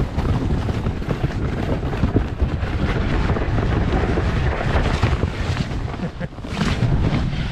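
Wind buffeting the action camera's microphone during a fast ride down a snow-tubing slope, mixed with the rough rushing scrape of the snow tube over the snow, with a brighter surge of hiss near the end.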